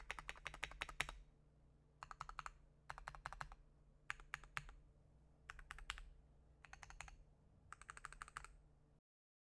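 Typing on a Keychron Q2 keyboard (tape-modded) with lubed, filmed Gateron Box Ink Pink V2 linear switches under dye-sub PBT MT3 keycaps. It comes in short bursts of rapid keystrokes with brief pauses between them, and it cuts off suddenly near the end.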